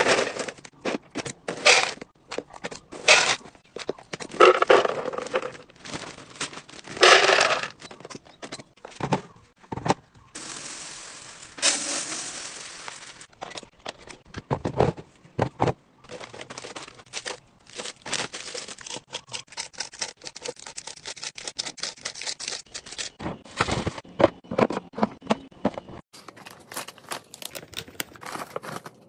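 Snack packaging crinkling and rustling while snacks are tipped out of bags into clear plastic storage containers, with plastic lids clicking and pressing on. There is a steady rushing hiss for a couple of seconds near the middle.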